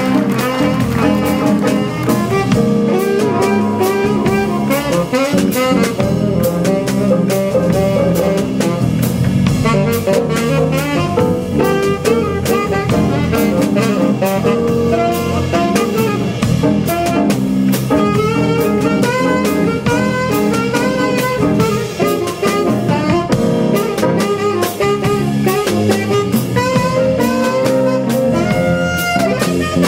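Small jazz combo playing: saxophones carry quick melodic runs over a drum kit and keyboard.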